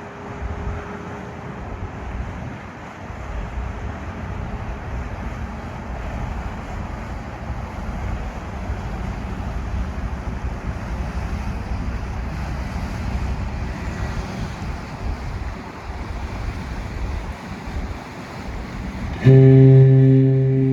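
Wind buffeting the microphone over water noise, then near the end a ship's horn starts a single deep, steady, loud blast.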